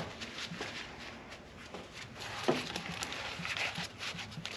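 Scattered light clicks and taps of hand tools and engine parts being handled under the hood, with one sharper click about two and a half seconds in.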